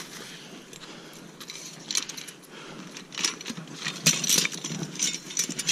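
Steel 330 body-grip beaver trap and its chain clinking and rattling as it is handled, in scattered clinks from about two seconds in that bunch together near the end.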